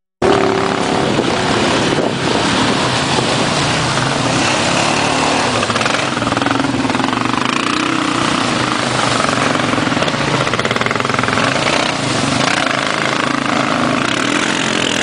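ATV engine run hard at heavy throttle, a steady continuous engine drone with no let-up: the rider is giving it too much gas where he should be going gently.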